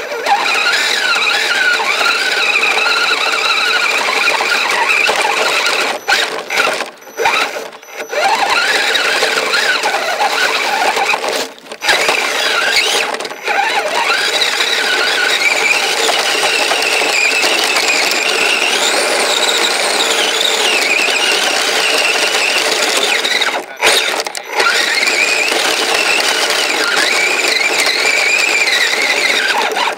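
Kyosho Blizzard RC snowcat's motor and track drive whining loudly, the pitch wandering up and down with the throttle. It cuts out briefly several times, about six to eight seconds in, near twelve and thirteen seconds, and around twenty-four seconds.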